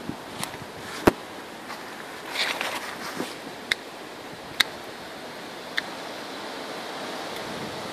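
Hand pruning snips clicking shut as peppers are cut from the plant: about half a dozen sharp clicks spaced irregularly, the loudest about a second in, with a brief rustle of leaves between them. Steady wind noise underneath.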